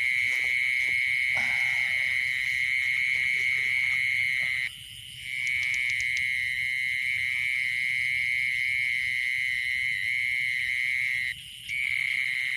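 A night insect, cricket-like, trilling in one continuous high-pitched tone. It stops suddenly for about half a second twice, once near the middle and once near the end. In the first two seconds there are footsteps and rustling through wet grass.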